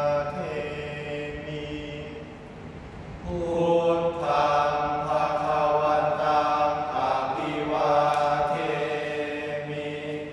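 Male voices chanting Thai Buddhist sarabhanya verse in long, held melodic lines. A phrase fades out in the first couple of seconds, then a louder phrase begins about three seconds in and ends near the end.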